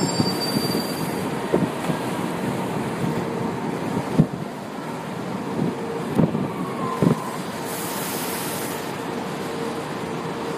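São Paulo Metro Line 1 train pulling out of the station: a steady rumble of wheels and traction motors, with a few sharp knocks as the cars roll past and a brief hiss about eight seconds in.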